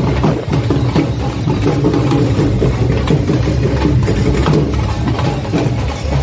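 Dhol drums played by a marching procession drum group, a busy, unbroken beat of strikes.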